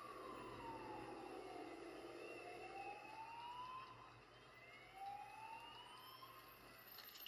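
Emergency vehicle siren wailing faintly, its pitch sliding slowly up and down in long sweeps, peaking about three times.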